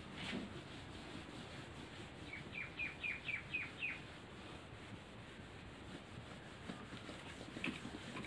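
A small bird chirping a quick run of about seven short, high notes, some two seconds in, over the soft rub of a duster wiping a whiteboard.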